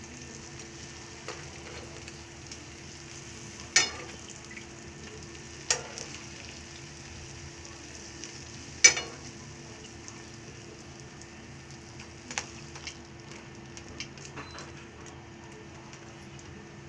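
Jalebis frying in hot oil with a steady sizzle. Metal tongs clack sharply against the pan three times, about 4, 6 and 9 seconds in, with a few softer clicks later.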